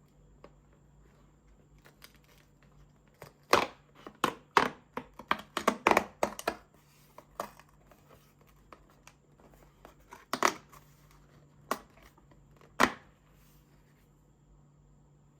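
Chocolate packaging being torn open and crinkled: a run of irregular sharp crackles starting about three seconds in and ending a couple of seconds before the end.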